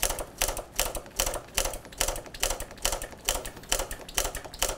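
Motorcycle front brake lever being pumped rapidly by hand, a steady run of sharp clicks several times a second. This is the lever pushing the freshly refitted caliper's pistons out until the pads bed against the rotor and pressure builds.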